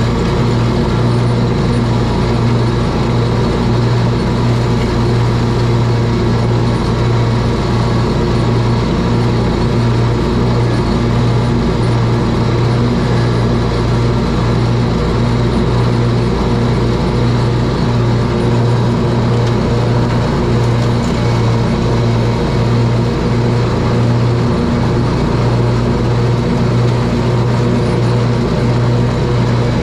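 Scag Tiger Cat zero-turn mower running steadily with its blades engaged, mowing grass and mulching leaves: an even, unbroken engine drone with a low hum.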